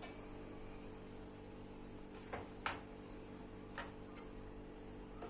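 Several light clicks and taps of kitchen utensils, spaced irregularly, over a steady electrical hum.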